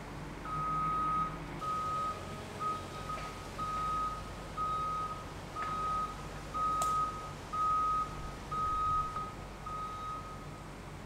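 Telehandler's reversing alarm beeping about once a second, a steady single-pitched beep, over the low running of its engine as it backs up with a load on its forks. A single sharp click comes about seven seconds in.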